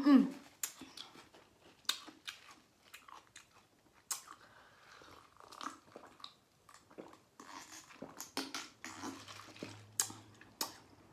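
Close-miked chewing and biting of food, with many short, irregular wet mouth clicks and small crunches. It opens with the tail of a hummed note sliding down.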